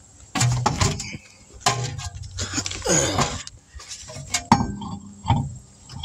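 Metal clinks and knocks as the rear wheel of a Ford Explorer is lifted and fitted back onto the hub, the sharpest knock about four and a half seconds in.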